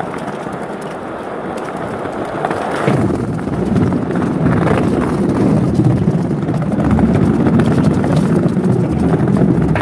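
Skateboard wheels rolling steadily along a paved path, then onto a wooden plank bridge deck about three seconds in, where the rolling rumble turns louder and heavier.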